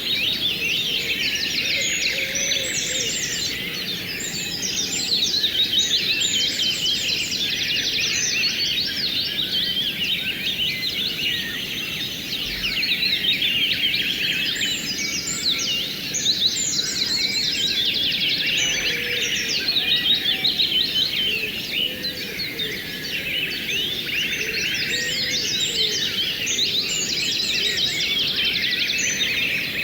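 A dense chorus of songbirds chirping and twittering in quick notes, swelling and easing back in waves, over a steady rush of flowing stream water.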